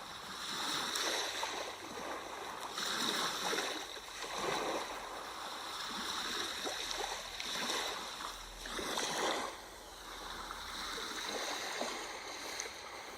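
Sea waves washing in, a steady rushing that swells and fades every second or two.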